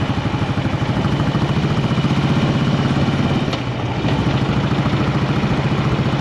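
Motorcycle engine running as the bike rides along at low road speed, with a regular pulsing exhaust beat; it eases off briefly about four seconds in, then picks up again.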